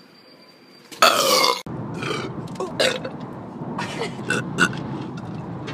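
A person burping: one loud belch about a second in, lasting about half a second, then several shorter burps over steady background noise. The sound cuts off abruptly near the end.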